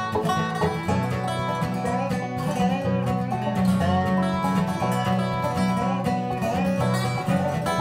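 Acoustic bluegrass trio playing an instrumental tune on resonator guitar played with a slide, acoustic guitar and banjo, with gliding slide notes over a steady strummed rhythm.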